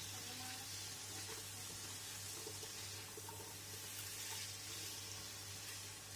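Faint steady sizzling of long beans and carrots frying in spice paste in a wok as they are stirred with a spatula, over a steady low hum.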